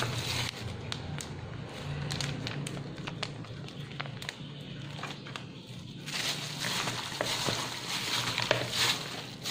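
Plastic-gloved hand tossing marinated chicken pieces with cornstarch in a bowl: wet squishing and plastic crinkling with scattered soft clicks, the mixing growing louder about six seconds in.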